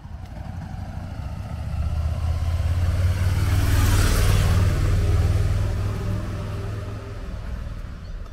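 A motor vehicle driving past: engine and tyre noise build to a peak about four seconds in, then fade away.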